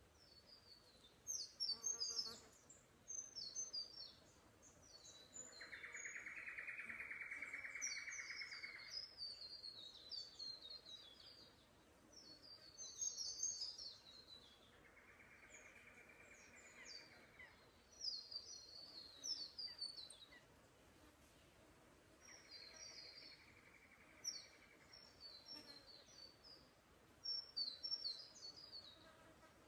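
Small forest birds twittering in short, high-pitched chirps throughout, faint overall. Three mid-pitched buzzes of two to three seconds each come in at about six, fifteen and twenty-two seconds in, each fainter than the last.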